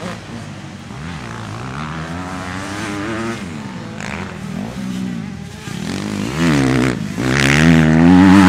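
Dirt bike engines revving up and down around a motocross track, pitch rising and falling with the throttle. The engine noise gets much louder from about six seconds in.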